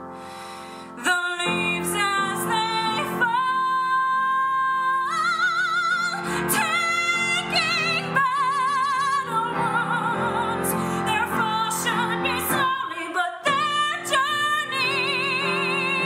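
A woman sings a slow ballad over piano accompaniment. Her voice comes in about a second in, holding long notes with a wide vibrato.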